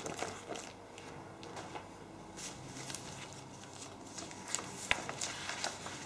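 Sheets of paper and a plastic document sleeve being handled and leafed through on a table: faint scattered rustles and light taps, with one sharper click about five seconds in.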